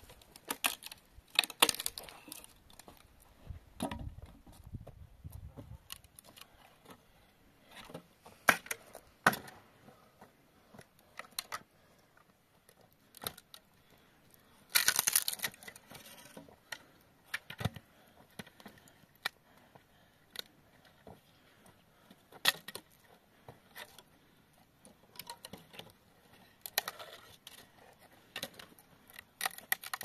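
Dry firewood being broken and handled: scattered sharp cracks and knocks of wood, with a longer, brighter crack of about a second near the middle.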